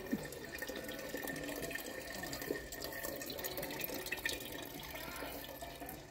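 Water trickling and splashing from a metal frog fountain statue, poured from its watering can into a metal pail below; it fades a little near the end.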